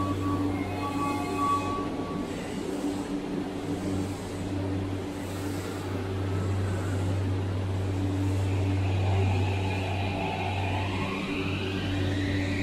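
Subway train departing a station: a repeated electronic door chime for the first second and a half, then the train pulls away, its traction motors whining and rising steadily in pitch from about eight seconds in, over a steady low hum.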